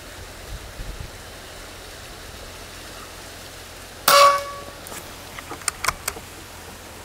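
Wind noise on the microphone throughout. About four seconds in, a single shot from a .177 PCP bullpup air rifle (Precihole PX120 Minotaur): a sharp crack with a short metallic ring. A few light clicks follow about a second and a half later as the action is cycled for the next pellet.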